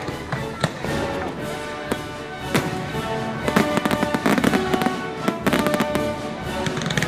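Fireworks going off in quick succession, many sharp bangs and crackles, thickest in the middle few seconds, over music with sustained notes.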